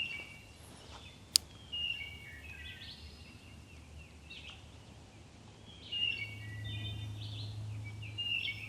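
Small birds calling in short chirping phrases every second or two, with one sharp click about a second and a half in and a low steady hum that comes up about six seconds in.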